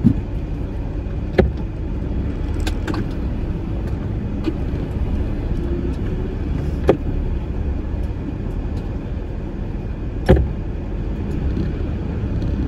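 Truck engine and road noise heard from inside the cab while driving: a steady low rumble, broken by a few short knocks and rattles.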